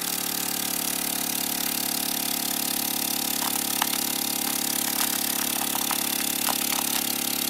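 FoodShield JP290 vacuum sealer's pump running steadily, drawing the air out of a bag, a constant hum with hiss and a few light clicks. Its suction is somewhat weak here because the water-collection cup was not fully seated.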